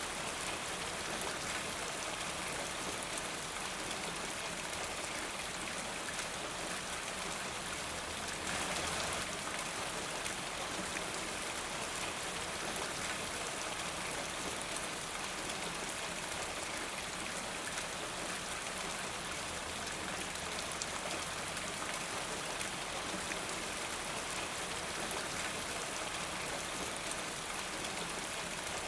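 Steady rain falling, with many individual drops ticking through it. There is a brief swell in intensity about nine seconds in.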